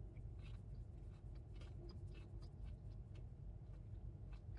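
Quiet eating sounds: faint, scattered small clicks and rustles of chewing and handling food, over a low steady rumble.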